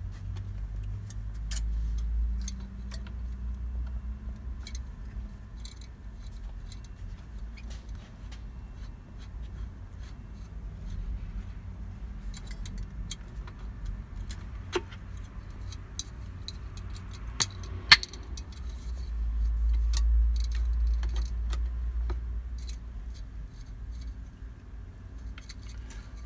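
Light clicks, knocks and rattles as a twin squirrel-cage blower fan motor is handled and seated against an evaporator coil, with one sharp click, louder than the rest, past the middle. A low rumble underneath swells near the start and again about two-thirds of the way through.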